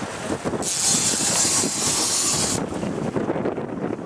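Wind buffeting the microphone over the steady rush of a boat moving through the sea. A high hiss cuts in about half a second in and drops away past halfway.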